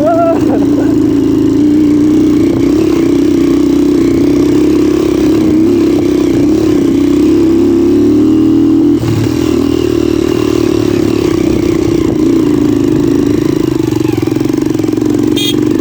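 Motorcycle engine running steadily under way, its note wavering slightly with the throttle and dropping a little in level about nine seconds in.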